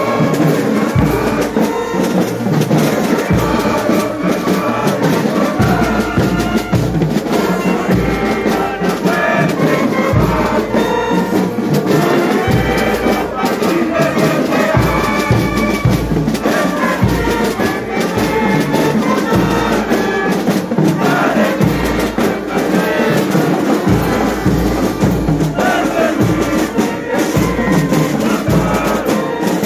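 Brass band with drums playing a school hymn, with trumpets carrying the melody over steady bass-drum beats.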